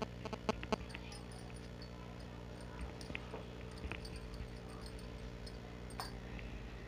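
Hands shaping puri dough into balls on a stone slab: a few sharp taps in the first second, then occasional soft clicks as the balls are set down, over a faint steady hum.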